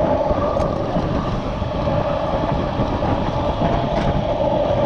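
Stunt scooter wheels rolling over concrete, a steady rumble with a constant hum.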